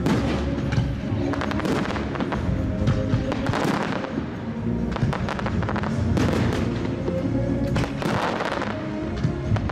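Aerial fireworks shells bursting in quick succession, with spells of dense crackling from glittering stars, over music.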